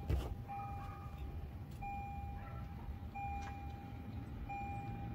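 Car warning chime, a steady single-pitch beep sounding about four times at even spacing of roughly 1.3 seconds. Under it is a low rumble, and there is a short click right at the start.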